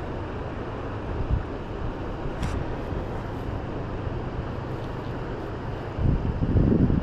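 Steady rush of a fast river running high with snowmelt, with wind buffeting the microphone. One sharp click about two and a half seconds in, and the wind rumble grows louder near the end.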